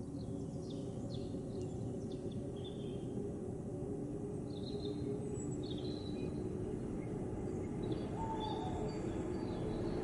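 Train approaching from a distance: a steady low rumble that slowly grows louder. Birds chirp over it throughout.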